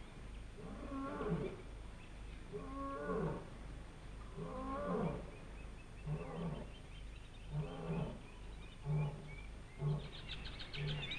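A lion roaring in a bout of deep, moaning calls, roughly one every two seconds. The calls grow shorter and come faster toward the end, and a low steady hum runs underneath.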